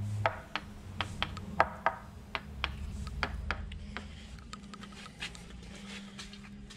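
Sharp taps of a small hand tool on the fibreglass skin of a sailboat keel, about two a second, loud at first and fainter after a few seconds. The keel is being sounded out for hollow voids where the structural fill is missing. A faint steady low hum runs underneath.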